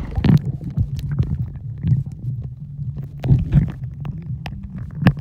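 Muffled underwater sound from a phone sealed in a plastic pouch as it goes below the surface at the start: a low steady rumble with scattered clicks and knocks from water and the pouch moving.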